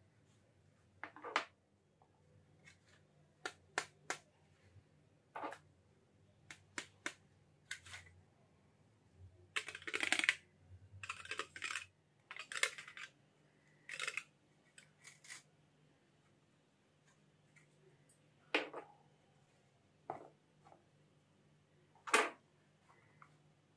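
Handling noise from unboxing an LED flood light panel: scattered clicks and taps as the panel, its backing plate and the box are picked up and set down, with a run of rustling and scraping about ten to thirteen seconds in. A faint steady low hum lies underneath.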